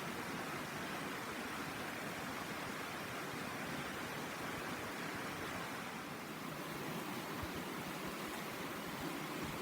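A river murmuring steadily as it flows over stones.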